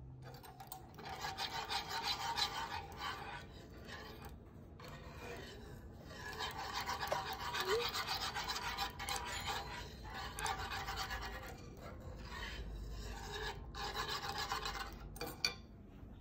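Wire whisk scraping rapidly around a nonstick frying pan while stirring Alfredo sauce, in several spells of a few seconds each with short pauses between.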